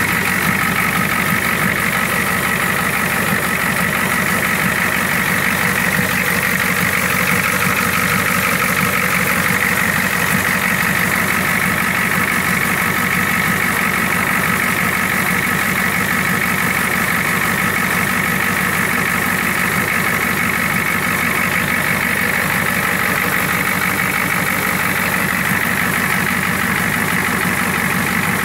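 6.9-litre V8 diesel engine running at a steady idle, just after its first start after sitting for a long time.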